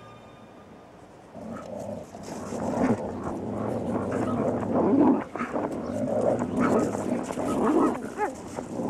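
Snarling and growling from a coyote scuffling with an otter over a fish. It starts a little over a second in and grows louder, with the loudest outbursts about five seconds in and again near the end.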